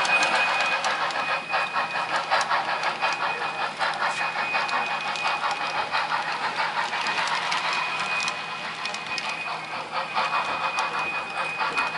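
Model locomotive running on the layout: its small motor and gears whir with a steady high whine, with many small clicks throughout.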